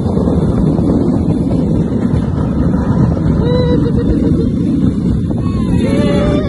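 Battambang bamboo train (norry) running along the rails: a loud, steady rumble of its small petrol engine and wheels on the track, with wind on the microphone. Short voice calls about three and a half seconds in and near the end, as another cart passes.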